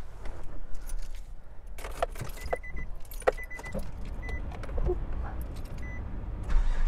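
Keys jangling and clicking in the ignition of a 2004 Nissan Xterra, with several short electronic chime beeps while the key is in. The starter begins cranking the engine right at the end.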